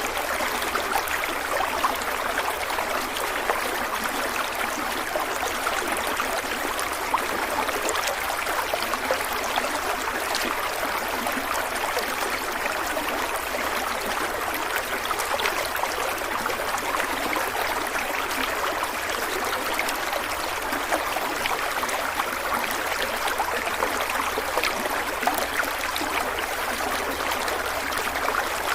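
Stream of water running and trickling steadily, an even rushing with small gurgles and splashes throughout.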